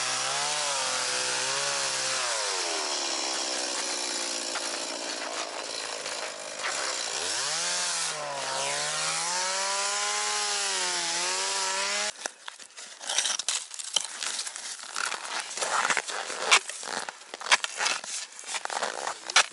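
Stihl chainsaw cutting through thick lake ice, the engine note dipping and recovering as it bogs under load, then cutting off about twelve seconds in. After it, a run of sharp knocks as the cut ice is broken out with an ice chisel.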